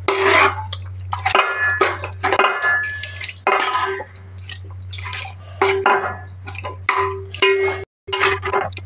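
Metal spoon stirring thick, wet yogurt-and-green-masala chicken marinade in a steel pot: repeated squelching strokes with the spoon now and then ringing against the pot, over a steady low hum.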